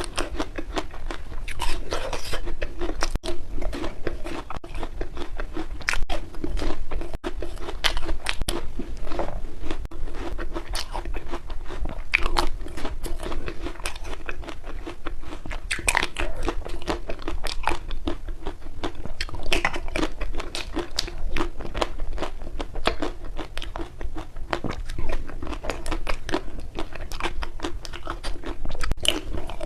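Close-up crunching and chewing of frozen ice cream: dense, irregular crisp crackles and bites, with a faint steady hum underneath.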